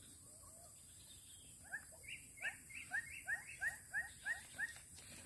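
An animal calling a series of about nine short, rising yelps, roughly three a second, starting a little under two seconds in.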